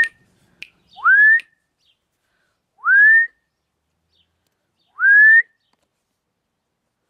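A rising whistle repeated three times, about two seconds apart. Each note slides up quickly and levels off at a high held pitch for about half a second.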